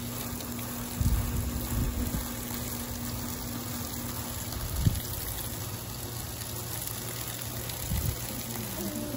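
Water running steadily from a garden hose, an even hiss, with a few low bumps and a faint low hum that stops a little before halfway through.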